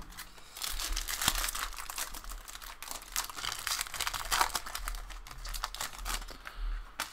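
Trading card pack wrappers crinkling and rustling in irregular bursts as packs are torn open and the cards pulled out by hand.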